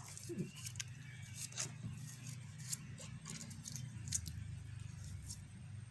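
Small kitchen knife slicing through a cucumber held in the hand, a light crisp click with each cut, coming irregularly about every half second, with slices dropping into sauce in a stone mortar. A low steady hum runs underneath.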